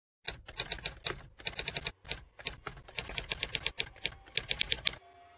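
Typewriter keys clacking in quick, irregular runs of strikes as title text types out letter by letter; the clacking stops about five seconds in.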